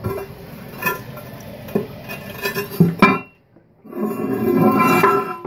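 Toilet tank filling through its fill valve: a steady rush of water with a faint whine, which starts about four seconds in after a short lull. Before that come a few light clinks and knocks.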